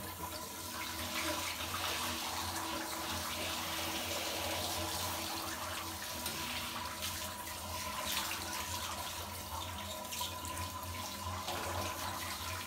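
Water running steadily from a bathtub's handheld shower sprayer, splashing into the tub and onto a dog being wetted down for a bath.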